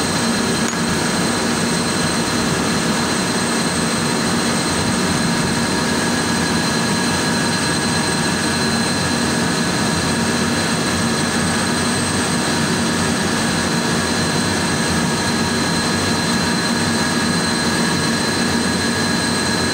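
Steady whir of running machinery, with a constant high whine over it and no change in level.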